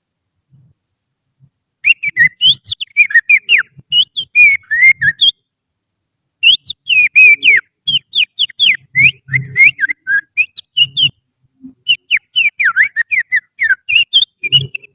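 Finger whistling through the little fingers, imitating the song of an oriental magpie-robin (kacer) as a lure call: three runs of quick, varied chirping notes sweeping up and down in pitch, with short silences between them.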